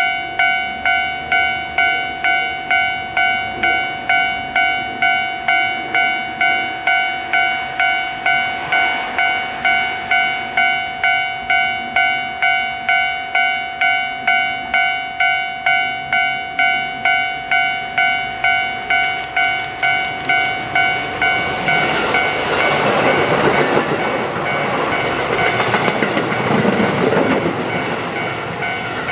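Japanese level-crossing warning bell ringing in even strikes about one and a half times a second. From about 21 seconds in, a Keihan 1000 series electric train passes, its wheels rumbling and clattering over the rail joints while the bell keeps ringing.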